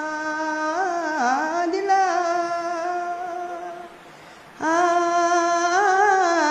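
A solo voice singing long held notes, wavering into short ornamental turns between them, with a brief pause about four seconds in before the next phrase.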